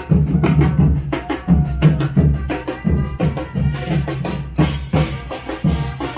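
Street brass band playing: horns over a pulsing bass line and a steady, loud drum beat.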